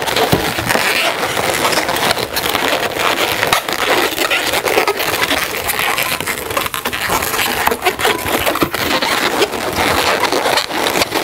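Inflated latex modelling balloons rubbing against one another as they are twisted and tied together: a continuous rubbing full of small crackles, close to a clip-on microphone.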